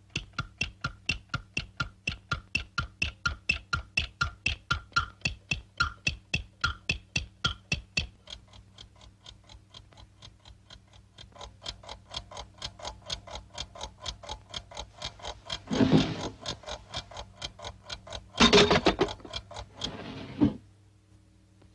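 Cartoon alarm clock ticking fast and loud, about five ticks a second, many of them with a ringing pitched tock. The ticking drops lower about a third of the way in, then swells up again. Two louder raspy outbursts break in near the end.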